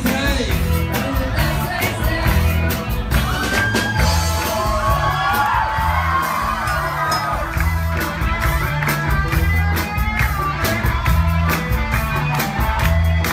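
Live band playing upbeat dance music, with electric bass and drum kit keeping a steady beat, while voices sing and whoop over it.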